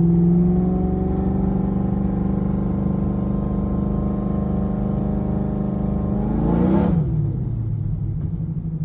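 Drag-race Mustang's engine running under light throttle at low speed, its pitch creeping slowly up. About seven seconds in the revs fall quickly with a brief rush of noise, as on a gear change or lifting off, and it settles to a lower, steady run.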